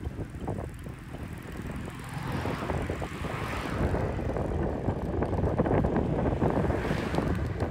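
Wildfire burning in grass and brush close by: a steady rumble full of dense crackling, getting louder about two seconds in.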